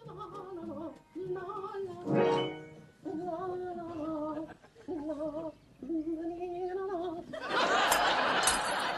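A voice singing unaccompanied in an operatic style, with heavy vibrato, in short phrases, with a short louder outburst about two seconds in. Studio audience laughter breaks in about seven and a half seconds in.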